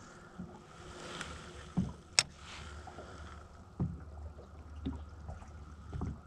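Small fishing boat sitting quietly on the water: a steady low rumble and a faint steady hum, with a few soft knocks and one sharp click a little past two seconds in.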